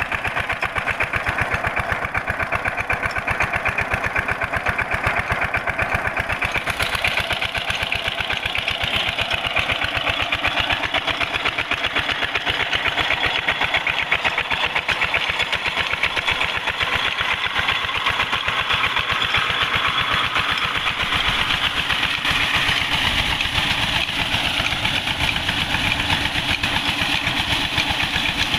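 Single-cylinder diesel engine running steadily with a rapid, even beat, belt-driving a tubewell pump. About seven seconds in, a steady rushing of water joins as the pump discharges from its outlet pipe.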